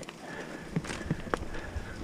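Commencal mountain bike rattling over rough trail on a descent. A few sharp knocks and clatters of the bike come about a second in.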